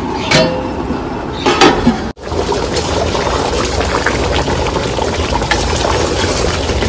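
Thick meat gravy simmering and sloshing in a large aluminium pot while a perforated steel skimmer stirs it, with a couple of clinks of the skimmer against the pot in the first two seconds and a steady low rumble underneath.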